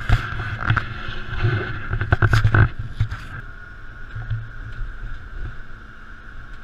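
Ride noise inside a bus: a steady low engine and road rumble with a constant high whine, and a quick run of rattling knocks a little past two seconds in.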